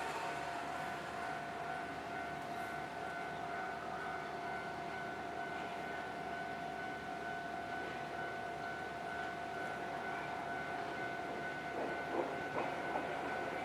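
Warning bell of a Japanese railway level crossing ringing steadily. Near the end the noise of an approaching train starts to join it.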